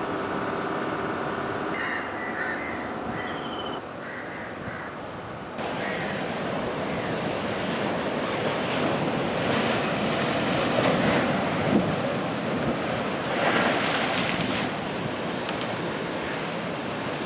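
Heavy sea surf breaking and rushing in strong wind, with wind buffeting the microphone; the loudest surges come about ten and fourteen seconds in. During the first four seconds a steady pitched hum sits under the noise.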